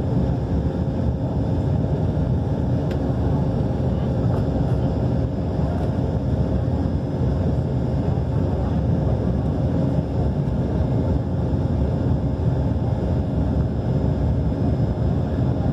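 An airliner's engines and airflow heard from inside the passenger cabin: a steady, loud rumble with a constant hum, during the takeoff and climb.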